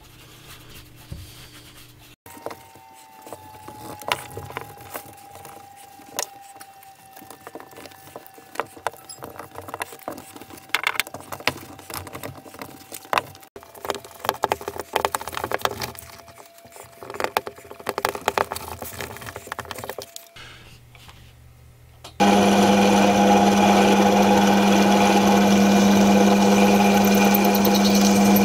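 Scattered light clicks, knocks and rubbing from hand work on a wooden vise with steel rods: rubbing wax on with a cloth and winding its threaded-rod handle. About three-quarters of the way in, a bench drill press cuts in abruptly, its motor running with a steady loud hum, the loudest sound here.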